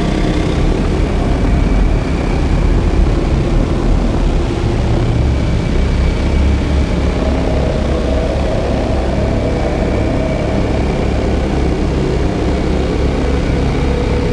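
Live experimental drone-noise music: a loud, steady, dense rumble heavy in the bass, with faint held tones drifting above it.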